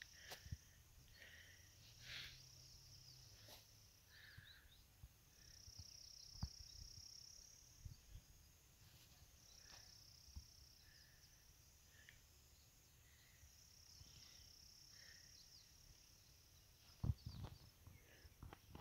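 Near silence with faint, high-pitched insect buzzing that comes and goes in long stretches, a few soft chirps, and a couple of low thumps near the end.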